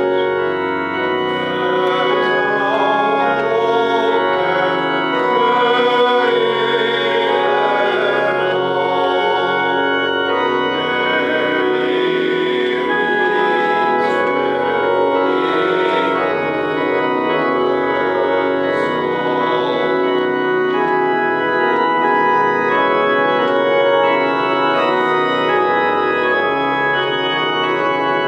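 Two-manual electronic church organ playing full, sustained chords that change every second or so.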